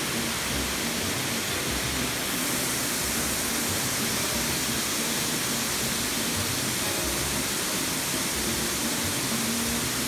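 Mountain stream pouring over a low weir: a steady, unbroken rush of water.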